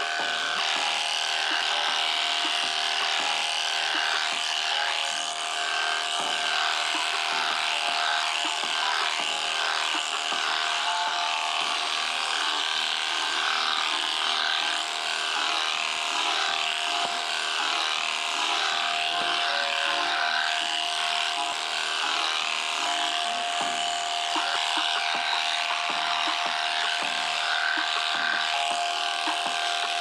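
Electric sheep-shearing handpiece running steadily as its cutter clips through matted wool, a constant motor whine and buzz.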